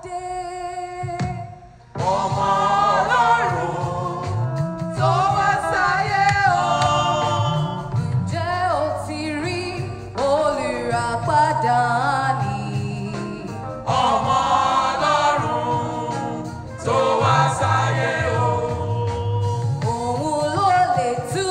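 A women's choir singing a Christmas carol into microphones. One voice holds a note at first, then the full choir comes in about two seconds in.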